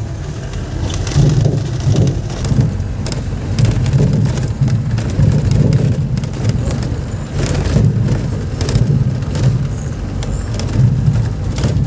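Car engine and road noise heard from inside the cabin, steady and loud, with frequent small knocks and rattles.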